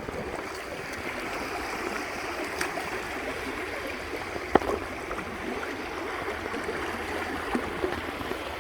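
River water running over rocks, a steady babbling rush. A single sharp click stands out about four and a half seconds in.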